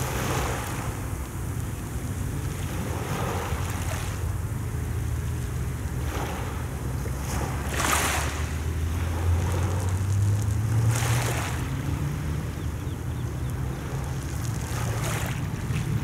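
Small sea waves washing in over a pebble beach every few seconds, each a swelling and fading hiss, over a steady low rumble of wind on the microphone.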